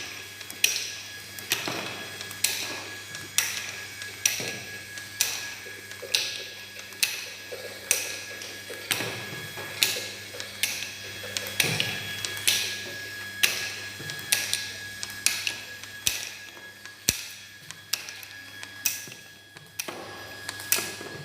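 Bottle labeling machine running, with a sharp mechanical click about once a second over a steady motor hum.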